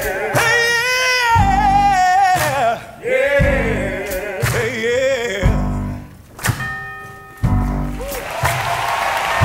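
Gospel-style male solo singing with vibrato from a stage musical, over a driving accompaniment: a heavy low beat about every two seconds with sharp percussive strikes between them. Near the end the singing stops and applause begins.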